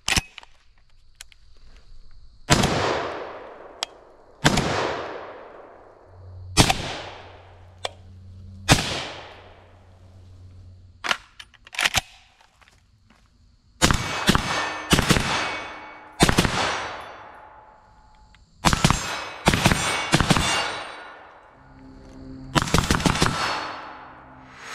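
FN SCAR 16S 5.56 short-barreled rifle firing. First come single unsuppressed shots about two seconds apart, each with a long echoing tail. About ten seconds in, suppressed shots fired through a Dead Air Sandman S suppressor follow, in quicker clusters from about fourteen seconds on.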